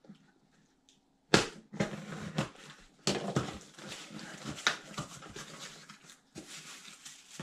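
A cardboard shipping box being opened by hand: after a near-quiet second, a sharp rip of packing tape, then the flaps are pulled open with cardboard scraping, crackling and rustling.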